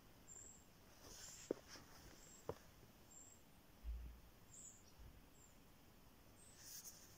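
Near silence: faint outdoor background with a scattering of brief, very high chirps, two soft clicks in the first few seconds, and a short low bump about four seconds in.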